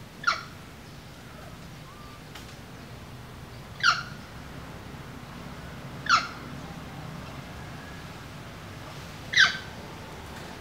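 An animal's short, high call, heard four times a few seconds apart, each a quick sharp sweep over a steady low background hiss.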